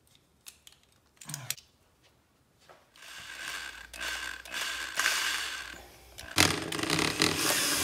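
Electric drill running as it bores a hole down the centre of a halved rubber super ball, starting about three seconds in with a steady whine and growing louder a little past six seconds in. Before it, a few faint clicks and scrapes from a utility knife cutting the rubber ball.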